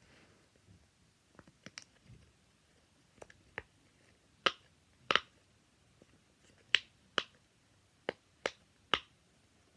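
Fidget toys being popped and clicked by hand: about fourteen short, sharp pops at an irregular pace, faint ones first and the loudest in the second half.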